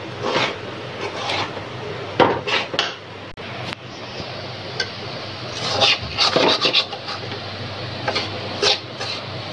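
Metal spatula stirring and scraping semolina with ghee and spices in a steel kadhai: irregular rasping scrapes of metal on the pan, over a steady low hum.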